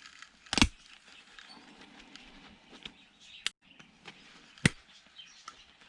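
Small metal parts of a DVD player's laser unit being pried apart by hand: sharp clicks and snaps, two loud ones about half a second in and about three quarters of the way through, with faint ticking and handling between them.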